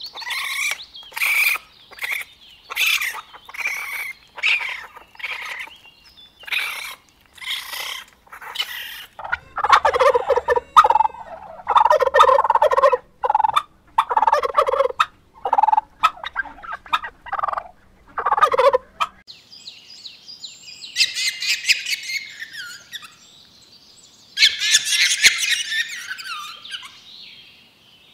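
A tom turkey gobbling again and again, the loudest sound, from about ten seconds in until roughly two-thirds through. Before it comes a row of short high-pitched animal calls, about one a second. Near the end there are bursts of high, fast chirping.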